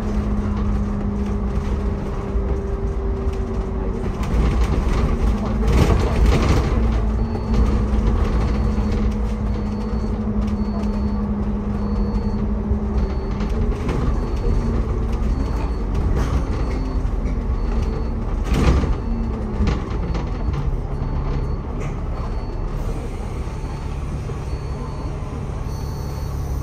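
Inside a moving Hong Kong double-decker: a steady engine drone and rumble from the ride, with a couple of louder knocks. From about seven seconds in, a short high beep repeats roughly every three-quarters of a second.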